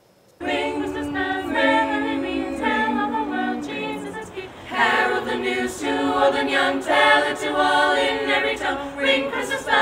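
A mixed choir of carolers singing a Christmas carol a cappella in several voice parts. The singing comes in about half a second in, with a brief break a little past four seconds in.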